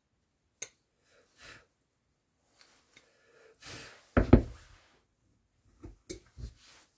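Scattered short puffs of breath and light knocks from hand woodcarving work. The loudest is a close pair about four seconds in, and a few smaller taps come near the end.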